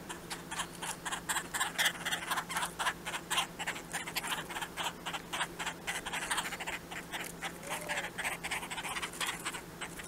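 Red-bellied woodpeckers giving a long, rapid series of short harsh notes, about four or five a second.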